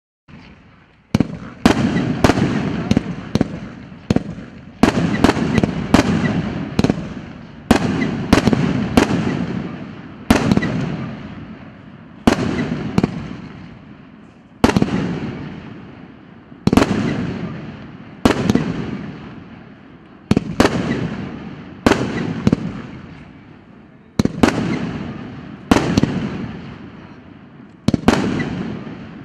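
100-shot, 1.5-inch fireworks cake (Russkiy Feyerverk P8631 'Siyanie Severa') firing its aerial shells: a rapid series of sharp bangs, starting about a second in, coming in quick clusters of two to five with short pauses between, each one ringing out and fading.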